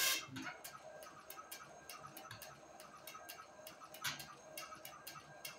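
Dot-matrix printer printing slowly: a quiet run of rapid small clicks and ticks from the impact print head, with a slightly louder burst about four seconds in.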